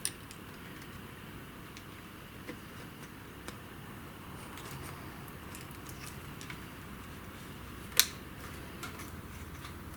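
Small clicks and taps of a laptop hard drive and its plastic and metal parts being handled, with one sharper click about eight seconds in, over a steady low background noise.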